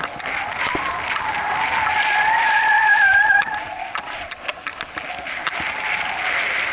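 A rush of wind noise with a wavering whistle and a higher overtone above it. The whistle fades about three and a half seconds in, after which scattered sharp clicks come through.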